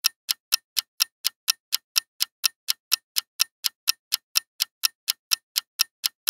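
Countdown-timer ticking sound effect: sharp clock-like ticks about four times a second, evenly spaced, with silence between them.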